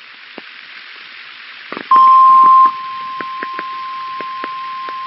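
Weather-radio static with scattered crackling clicks, then a single steady alert tone near 1 kHz begins about two seconds in, typical of the NOAA Weather Radio 1050 Hz warning alarm tone that comes before a warning is read. It starts loud and drops to a lower level after under a second, holding steady.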